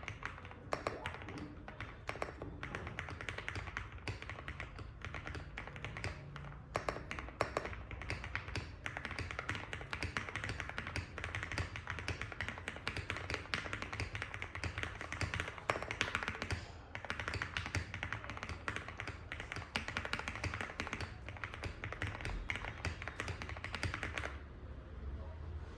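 Fast, continuous typing on a gasket-mounted Zoom TKL mechanical keyboard with lubed Cherry Hyperglide Black linear switches, an aluminium plate and SA keycaps: a dense run of keystroke clacks that stops near the end.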